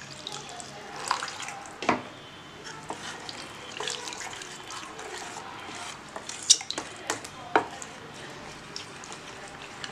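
Steel spoon stirring thick flour batter in a stainless steel bowl: wet squishing and scraping, with several sharp clinks of the spoon against the bowl's side.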